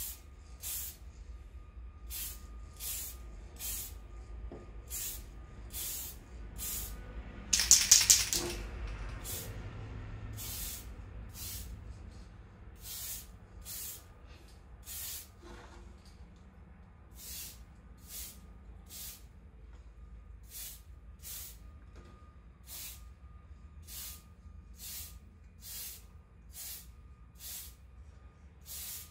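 Aerosol spray paint can hissing in short bursts, about two a second, as paint is misted onto a polycarbonate RC car body; one longer, louder burst about eight seconds in.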